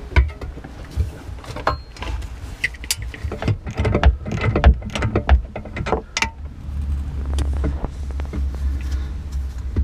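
Hand tools clicking and knocking against metal engine fittings in irregular bursts, then a steady low rumble over the last few seconds.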